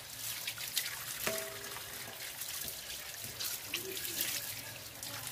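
Water running from a pipe spout onto a concrete floor, splashing over hands as small fish are rinsed under the stream, with uneven spatters throughout.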